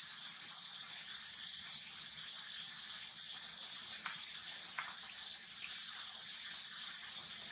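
Steady high-pitched chirring of an outdoor insect chorus, with a couple of faint clicks about four and five seconds in.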